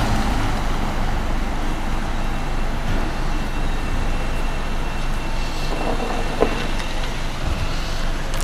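Steady rumble of a Bombardier M7A electric multiple-unit train at the station, with a faint high whine from about three seconds in.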